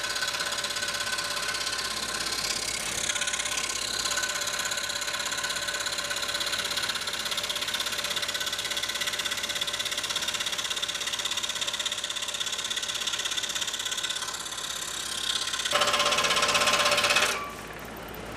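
Scroll saw running and cutting through two taped-together boards, played back sped up, a steady fast mechanical buzz. It gets louder near the end, then drops off sharply about a second before the end.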